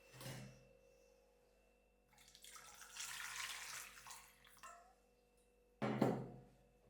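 Water running from a tap for about two and a half seconds, between two dull knocks: a soft one at the start and a louder one near the end, over a faint steady hum.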